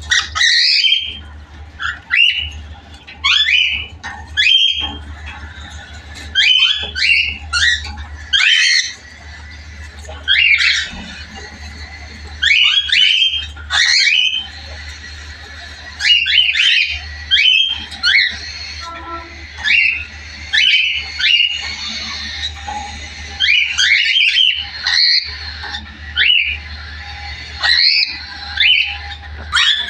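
Young cockatiels squawking: short, harsh, rasping calls repeated throughout, often two to four in quick succession, over a steady low hum.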